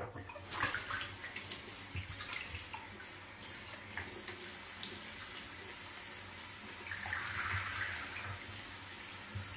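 Water sloshing and splashing in a plastic bath basin as a wet cat standing in it is washed: small splashes throughout, with a longer swish of water about seven seconds in.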